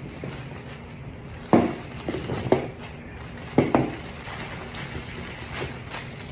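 Whole carrots knocking onto a hard countertop as they are taken from a plastic bag: a sharp knock about a second and a half in, two lighter ones after it, and a pair of knocks past three and a half seconds. The thin plastic produce bag crinkles as a hand reaches in for more.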